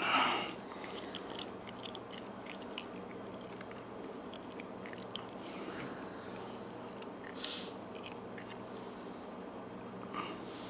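Faint, scattered small clicks and scrapes of a disc detainer pick turning the discs inside a high-security padlock, with a few sharper clicks about seven seconds in, over a steady low hum.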